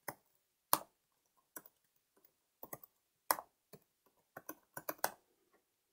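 Computer keyboard keystrokes as a password is typed: about fifteen separate clicks at an irregular pace, stopping about a second before the end.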